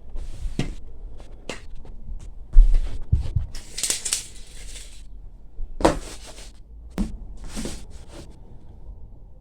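A diesel heater being unpacked from its cardboard box: cardboard rustling and scraping with scattered knocks, and a heavy thump about two and a half seconds in.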